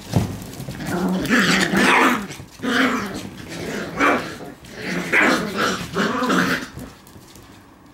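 Black Shiba Inu puppies growling at each other while play-fighting, in about four loud, rough bouts with short breaks between, falling quiet near the end.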